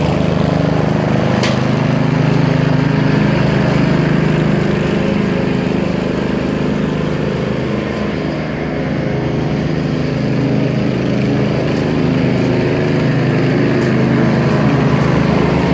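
Old single-blade Snapper riding mower's engine running steadily while it mows grass, at an even, loud level.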